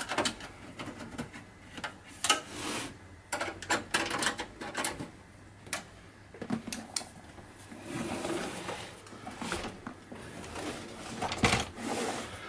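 Handling noise from an Olivetti M24 computer's metal case: a screwdriver working a rear screw, then the case shifted on the bench and its cover lifted, giving irregular clicks, knocks and short scrapes.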